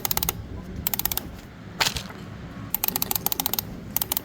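Wind-up chicken toy being wound by hand: its clockwork key ratchets in short, irregular bursts of rapid clicks.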